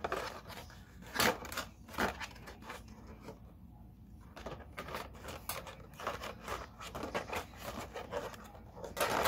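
CPU cooler parts and packaging handled by hand: irregular clicks, rustles and scrapes. A few near the start, a short lull, then a busier run of clicking in the second half.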